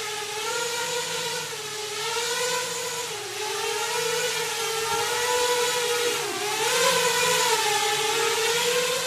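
A 7-inch FPV quadcopter's motors and propellers whirring in flight, the pitch wavering up and down as the throttle changes.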